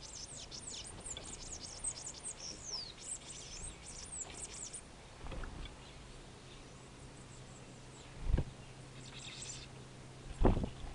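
Small songbirds chirping: many quick, high chirps crowding the first half, then a few more later. Two dull thumps, one about eight seconds in and one near the end, are the loudest sounds.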